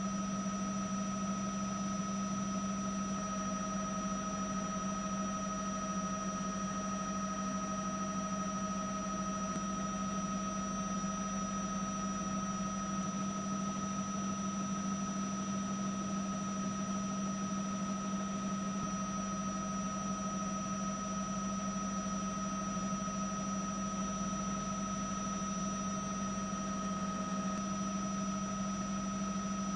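Steady drone and high whine of a news helicopter's turbine and rotors, heard from on board, unchanging throughout.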